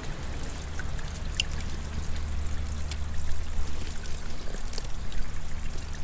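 Steady rushing wash of seawater over a pebble shore, with a few faint clicks.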